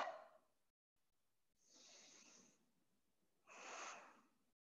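Near silence broken by a person's breathing: the tail of a loud breath as it begins, then two faint breaths, one about two seconds in and one near the end.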